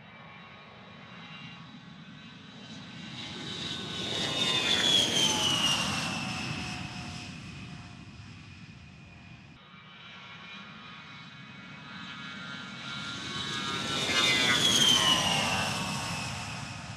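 Two takeoff passes by A-10 Thunderbolt II jets, one after the other. The twin TF34 turbofans build to a loud peak about five seconds in and again about fifteen seconds in, then fade. At each peak the high engine whine drops in pitch as the aircraft goes past.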